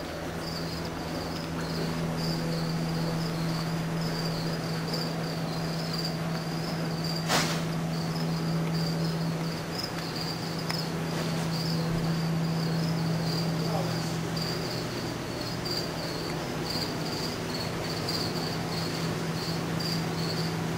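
Crickets chirping steadily, a continuous high pulsing trill, over a steady low hum, with one sharp click about seven seconds in.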